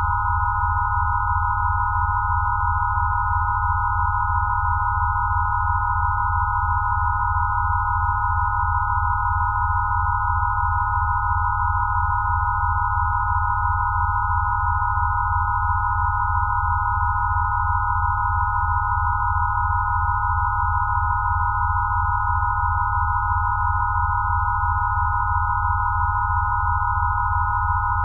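Steady synthesized sine tones of a 'Rife' healing-frequency track: a cluster of pure tones around 1 kHz over a low drone that pulses several times a second, unchanging throughout.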